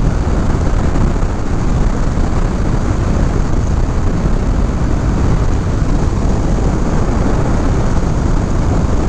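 Steady rush of wind on the microphone and road noise from a Honda CBR500R riding at cruising speed, with the motorcycle's engine buried in a low rumble underneath.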